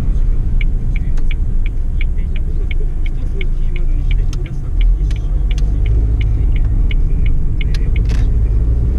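Inside the cabin of a Suzuki Alto Lapin: the low rumble of its small three-cylinder engine and the road, with an even ticking about three times a second that is typical of the turn-signal indicator. A short hiss comes near the end.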